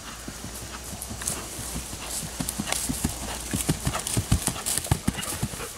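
Hoofbeats of a cantering warmblood cross horse on grass, growing louder as it comes close, loudest about four to five seconds in.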